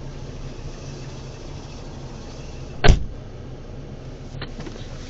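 Car engine idling with a steady low hum; about three seconds in, a car door slams shut once as the passenger gets out.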